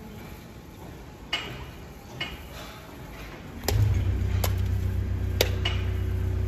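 A few sharp clicks and knocks, then a low, steady machine hum that starts suddenly just past halfway and keeps running.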